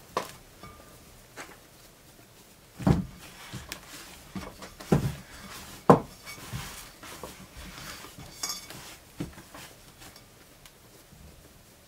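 Hands punching down and shaping dough into a bun in a glass bowl, with several dull knocks against the bowl, the loudest about three, five and six seconds in.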